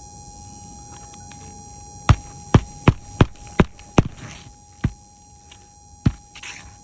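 Sharp knocks of hand-tool work on asphalt roof shingles during a shingle repair: six in a row at about two a second, then two more spaced further apart.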